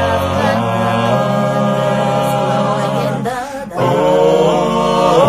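Vocal group singing a cappella in close harmony: long held chords over a sung bass line, with a short break about three and a half seconds in before the next chord.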